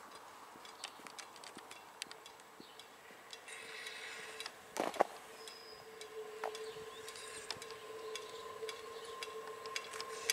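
South Shore Line electric commuter train approaching: a faint steady tone that sets in about halfway and grows louder as the train nears, with scattered sharp clicks and a brief knock in the middle.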